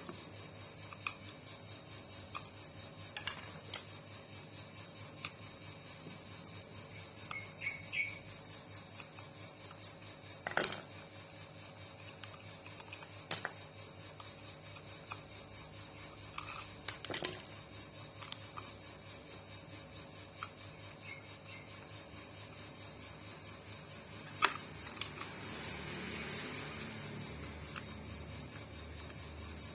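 Scattered clicks, clinks and knocks of hand tools and metal sewing-machine parts being handled during repair, with a few seconds of rubbing or scraping near the end, over a steady faint hum.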